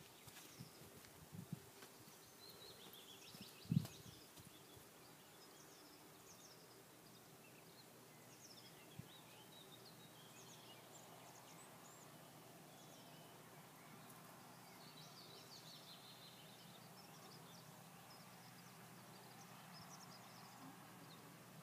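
Quiet outdoor ambience with faint, scattered chirps of distant songbirds, and a single low thump about four seconds in.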